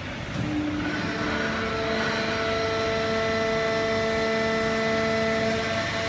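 Fully automatic horizontal hydraulic baler for waste paper running: a steady machine noise with a whine of several constant tones that sets in about half a second in and holds.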